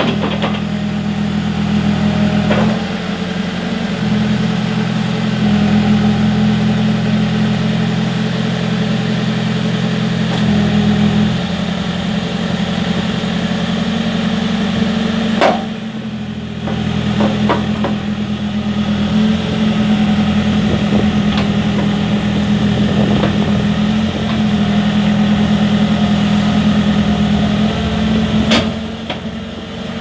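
Diesel engine of a New Holland B115B backhoe loader running steadily, its note shifting a few times, with a few sharp clicks along the way.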